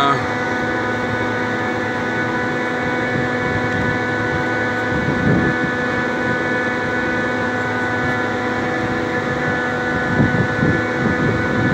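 Trane RTAC air-cooled screw chiller running: a steady machine drone with a constant whine at several pitches, and brief low rumbles about five and ten seconds in.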